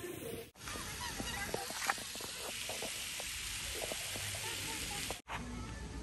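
Geese honking in a series of short calls over outdoor background noise, with the sound cut off abruptly twice by video edits.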